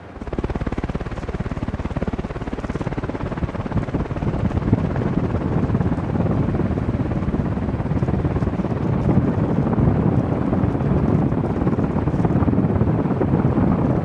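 Encon Crompton Greaves Princess ceiling fan running at speed, its blades sweeping past close to the microphone: a loud, steady rush of air with wind buffeting the microphone, growing a little louder about four seconds in.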